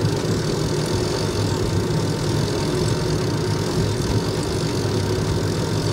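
Steady low engine drone of motor vehicles, running evenly without a break.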